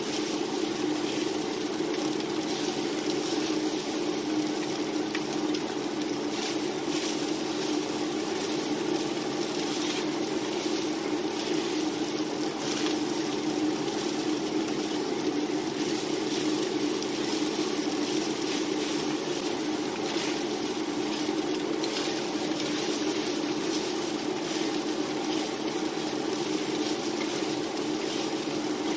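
Diced beef, onion, peppers and garlic sizzling in a hot skillet as a wooden spatula tosses and scrapes through them, over a steady low hum.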